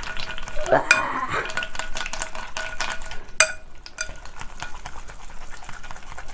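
Wooden chopsticks mixing chewy jjolmyeon noodles with red chili sauce in a glass bowl: a steady stream of wet, sticky stirring sounds, with the chopsticks now and then tapping the bowl so the glass rings, most clearly about a second in and again past three seconds.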